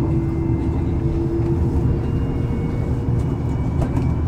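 Busan-Gimhae light rail train running along its track, heard from inside the car: a steady low rumble of wheels on rail with a faint motor whine that rises slightly in pitch.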